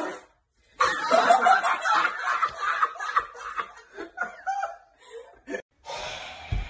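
A man laughing hard, starting about a second in and going on for several seconds before trailing off.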